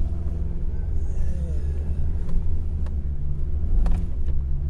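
Hummer H3 rumbling along at crawling speed over a rough off-road trail, heard from inside the cabin, with a few sharp knocks as it goes over bumps.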